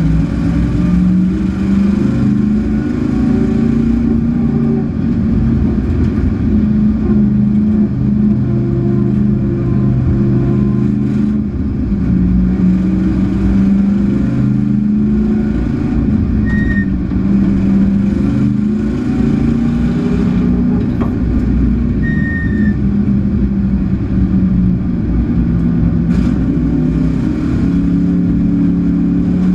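Race-prepared Chevrolet Camaro's V8 engine heard from inside the stripped cockpit, running hard under racing load, its pitch climbing and dropping repeatedly with throttle and gear changes.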